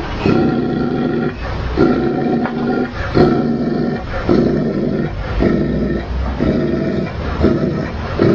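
Tibetan mastiff growling deeply, a string of about seven roar-like growls each lasting about a second.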